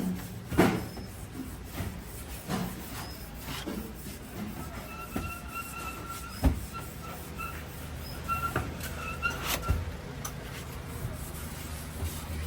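Scattered knocks and clanks of car body-shop work over a steady low hum, with faint short high tones coming and going between about five and nine seconds in.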